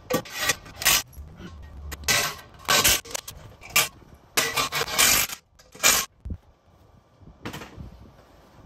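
A string of short metallic clinks and clattering knocks from tools and metal hardware being handled. The bursts are separate and irregular, with a longer clatter just under a second long near the middle.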